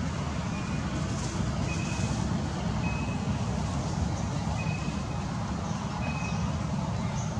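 Steady low rumble with a short high-pitched beep repeating about every second and a half.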